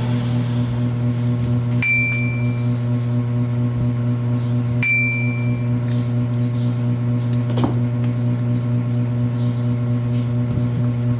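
A steady low hum, with two short, high ringing chimes about three seconds apart.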